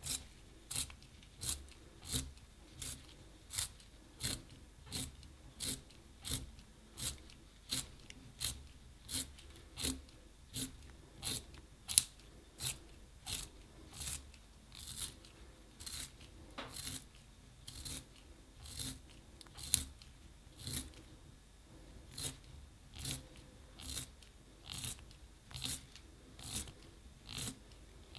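Wooden pencil turned by hand in a small handheld plastic pencil sharpener, the blade shaving off wood and graphite in short scraping strokes, about three every two seconds. Two sharper clicks stand out, about twelve seconds in and again near twenty seconds.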